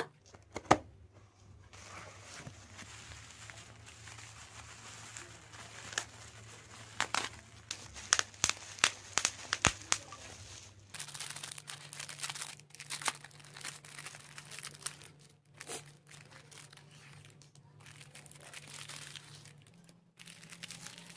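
Hands unwrapping a small parcel: packing tape torn and peeled from a cardboard box, then bubble wrap and plastic wrapping crinkling and rustling. A run of sharp clicks and snaps comes in the middle.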